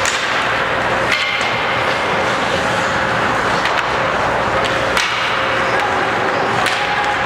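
Ice hockey play on a rink: a steady hiss of skates on ice and arena noise over a low hum. Three sharp clacks of stick and puck stand out, about a second in, at about five seconds and near the end.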